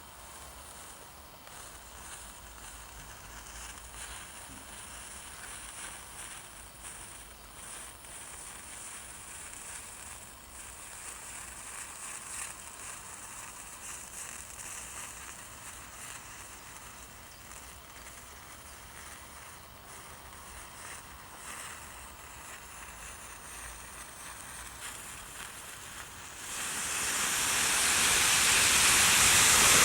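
Match heads burning in a chain reaction: a steady hiss with small crackles and flare-ups. About 26 seconds in it swells quickly into a loud rushing roar, the sound of a great mass of match heads catching at once.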